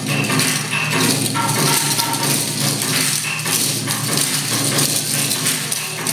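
Yosakoi dance music playing over loudspeakers, mixed with the steady clatter of naruko wooden clappers shaken in time.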